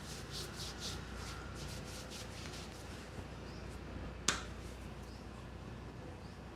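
Barber's hands working over the head in a head massage: a quick run of soft crackles and clicks, then one sharp snap about four seconds in.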